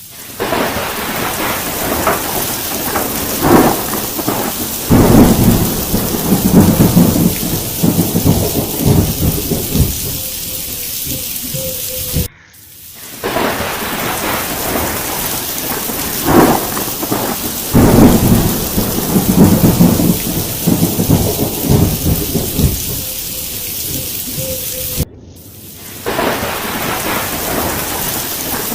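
Thunderstorm: heavy rain hissing steadily with loud rolls of thunder rumbling in surges. The sound cuts off abruptly twice and starts over the same way each time, like a looped recording.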